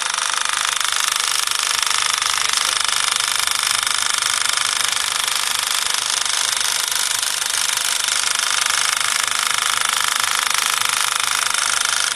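Tata Tigor engine running steadily with a fast, high-pitched rattling tick over its note, the abnormal noise that the owner finds annoying.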